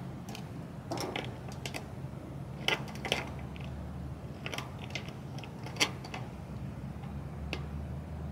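Scattered clicks and knocks of a gas leaf blower, its box and fuel can being handled, with a few sharper knocks about three and six seconds in, over a low steady hum.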